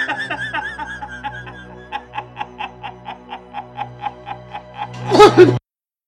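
Background music with a steady low note under a run of short, evenly spaced laughs, about four or five a second. A loud burst comes near the end, then everything cuts off abruptly to silence.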